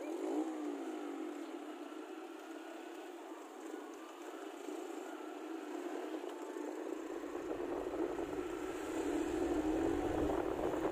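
Motorcycle engine running while riding, its pitch shifting a little at the start. About two thirds of the way through, wind buffeting the microphone comes in and grows louder.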